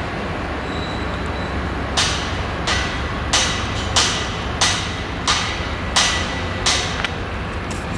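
New Holland CX combine harvester with an eight-row Geringhoff corn header running steadily while harvesting maize. Over it, from about two seconds in to near the end, comes a series of about eight sharp knocks, roughly one and a half a second.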